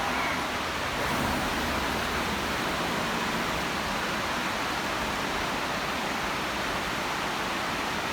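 Steady, even rushing noise of a running industrial machine, with no rhythm or distinct tones.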